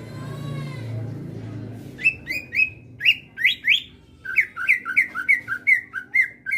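Greater green leafbird (cucak ijo) singing a rapid run of loud, short whistled notes, each sliding sharply in pitch, about three a second, starting about two seconds in.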